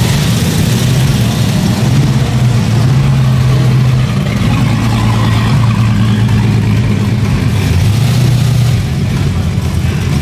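Car engine running at a steady low rumble, its level easing slightly about four seconds in and again near the end.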